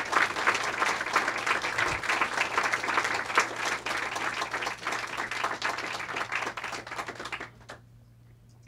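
A small audience applauding with dense hand-clapping that tails off and stops about seven and a half seconds in.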